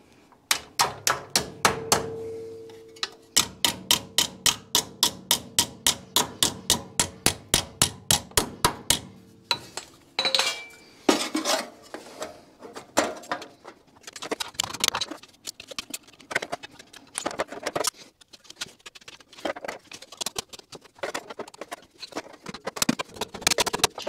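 Hammer striking a piece of sheet metal in a quick, even run of blows, about four a second, each with a short metallic ring, for the first nine seconds or so. After that come irregular clanks and scrapes as the metal piece is handled and test-fitted.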